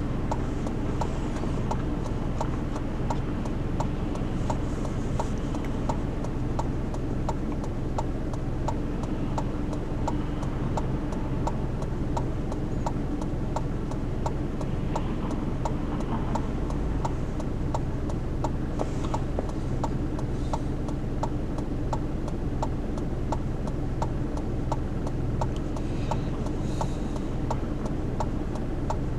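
A car's turn-signal indicator clicking at an even pace over the steady hum of the engine idling, heard inside the cabin.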